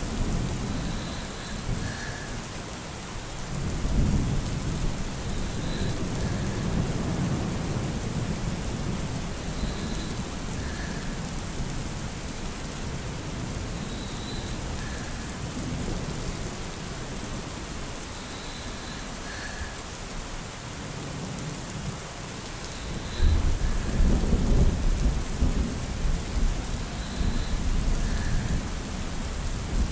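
Steady rain with rolling thunder. Low rumbles swell and fade, and the loudest thunder rolls in during the last few seconds.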